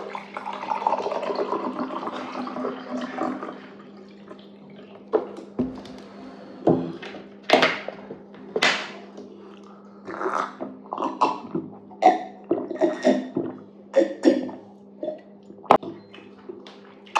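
Eating sounds: a few seconds of wet, liquid-like noise, then a long run of short, irregular mouth smacks and clicks, over a steady low hum.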